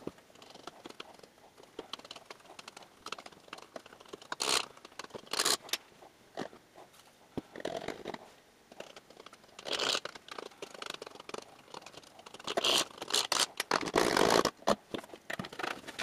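A steel ruler scraping and tapping inside a plastic funnel, pushing dry powder down into a bottle. It comes in irregular bursts of scratchy, crunchy noise, with a longer, louder stretch of rustling near the end.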